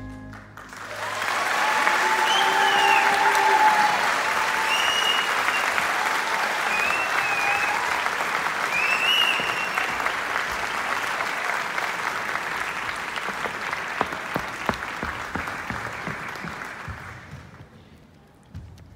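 Theatre audience applauding and cheering. The applause swells about a second in, with a few whoops over it in the first half, then dies away near the end.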